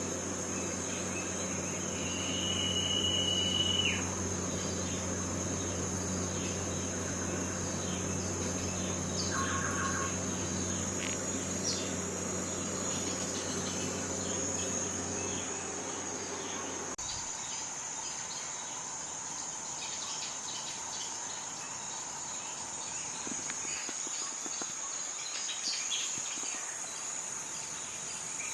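Crickets chirring steadily and high-pitched, with a low steady hum under them that cuts off suddenly about two-thirds of the way through. A brief high steady tone sounds about two seconds in.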